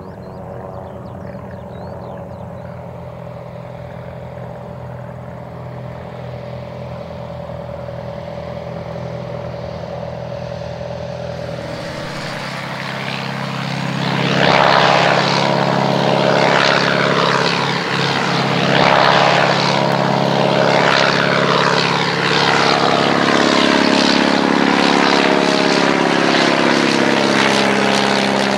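Halberstadt D.IV replica biplane's piston engine and propeller: a steady engine drone that slowly grows louder. About halfway through it becomes much louder as the aircraft passes low, and in the last few seconds the pitch falls away as it moves off.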